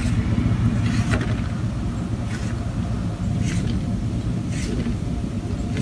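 Steady low background rumble, with a few short soft crinkles, about one a second, as fingers crimp pie dough against the rim of a foil pie pan.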